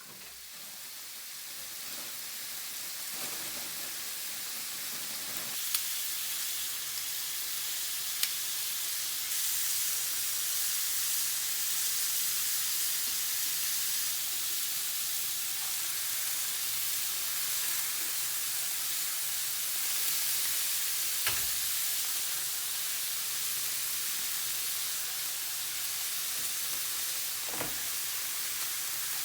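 Food frying in hot oil in a pan: a steady sizzle that swells in over the first couple of seconds, with a few light clicks now and then.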